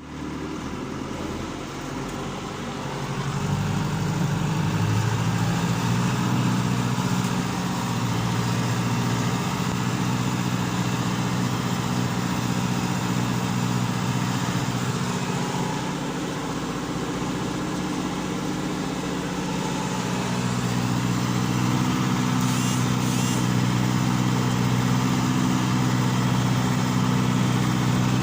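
John Deere tractor's diesel engine running steadily under load, pulling a plough. It grows louder about three seconds in, eases slightly in the middle, and rises again about twenty seconds in.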